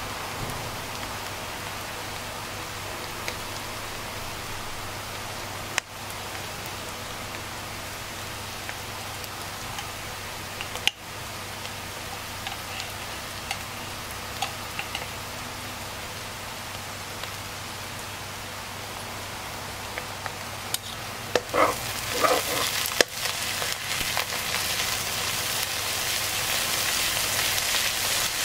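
Sliced shallots and diced filling sizzling steadily in oil in a non-stick pan, with a couple of sharp clicks. About twenty-one seconds in, a spatula starts scraping and stirring the pan, and the sizzle grows louder.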